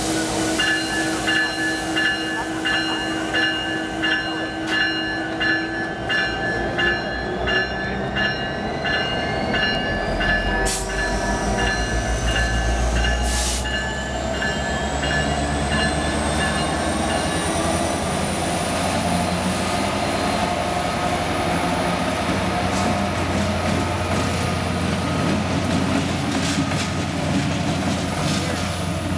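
CN EMD SD70M-2 diesel locomotive pulling away as its engine, a turbocharged two-stroke EMD 710, is notched up. The low engine note builds about ten seconds in, and the turbocharger whine rises in pitch before levelling off. For the first half, the locomotive bell rings in regular strokes.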